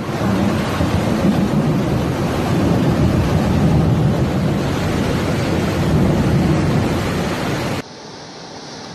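Loud, steady rushing of floodwater, heavy at the low end. It cuts off abruptly near the end to a much quieter hiss.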